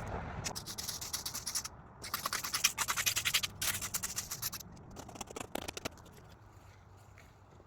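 Rapid scratchy scraping on gravel ballast, in three quick runs over the first four and a half seconds, then dying away.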